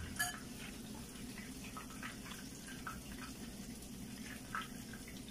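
Rolled corn-tortilla taquitos frying gently in oil over low heat: faint, scattered crackles and pops over a low steady hum.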